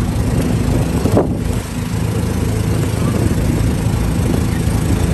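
Small engine of an open vehicle being ridden, running with a steady hum under wind rushing across the microphone. The rush briefly drops about a second in.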